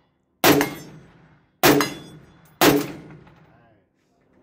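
Three rifle shots from an FN SCAR, fired one at a time about a second apart, each followed by a ringing, echoing tail.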